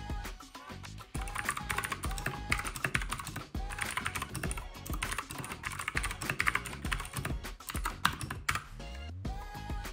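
Fast typing on a Keychron K2 mechanical keyboard, a dense run of key clicks starting about a second in with short pauses, over background music.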